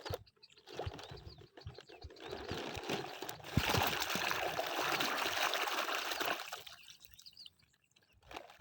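Water splashing and pouring, loudest for about three seconds in the middle before fading out, with scattered knocks before it.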